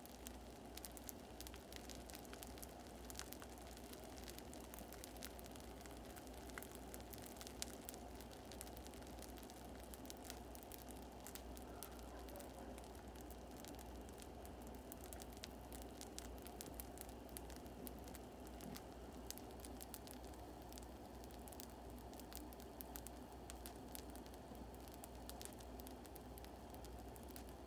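Baghrir batter cooking in a nonstick frying pan: a faint, steady crackle of many small ticks and pops as bubbles burst on the pancake's surface and open into holes, the sign that it is cooking through.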